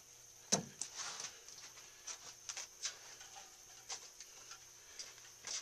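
Scattered light clicks and wet taps from hands and a sponge at a potter's wheel, irregular, with the sharpest about half a second in, over a faint steady hum.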